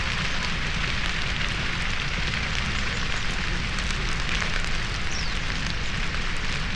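Dry grassland burning in a controlled hillside burn: a steady, dense crackle of many small pops over a constant hiss.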